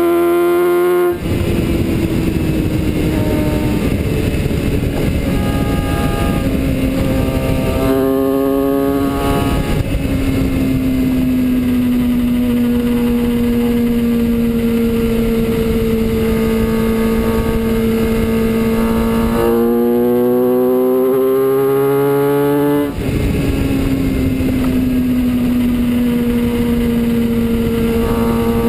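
Kawasaki ZX-6R inline-four engine running at highway speed under heavy wind rush on the microphone. The engine note holds a steady pitch for long stretches. The revs climb and drop back twice, about a second in and again about three-quarters of the way through, each drop marked by a short dip in level.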